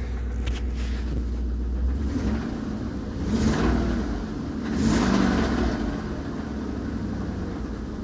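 Ford 5.4L Triton V8 idling, blipped twice, about three seconds in and again, a little louder, about five seconds in, heard from inside the cab. It is the engine whose knock and low warm oil pressure the owner is trying to diagnose, asking whether it is rod knock or something else.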